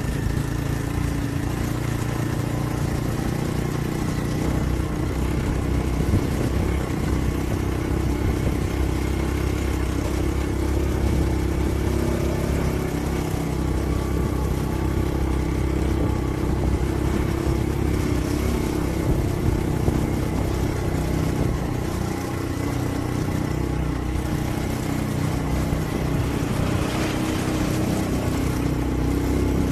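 Motorcycle engine running steadily while riding along at an even speed.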